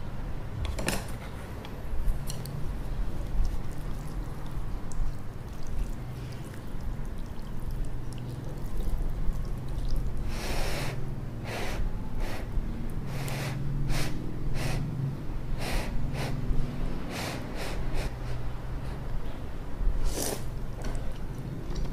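Instant ramyun noodles being slurped off chopsticks, a run of wet slurps starting about halfway through and another near the end, over a steady low hum.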